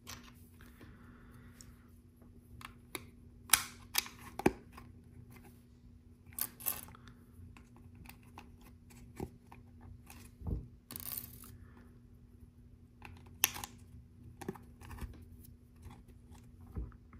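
Small plastic LEGO pieces clicking and clattering as they are sorted from a loose pile on a table and pressed onto a LEGO baseplate: scattered sharp clicks at irregular intervals, with a short rustle about eleven seconds in.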